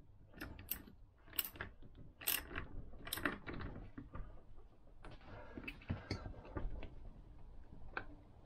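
Socket ratchet wrench clicking in short irregular runs as it tightens the nut on a Vespa PX crankshaft, the nut being brought up as tight as it will go.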